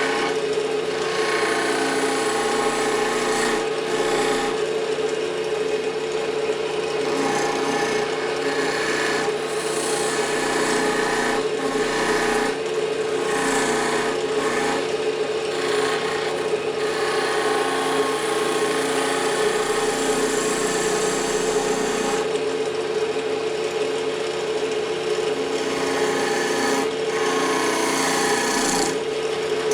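Wood lathe running with a steady hum while a turning tool cuts spinning fatwood (resinous pine), giving a scraping, hissing cut that breaks off briefly several times as the tool is lifted and set back on the wood.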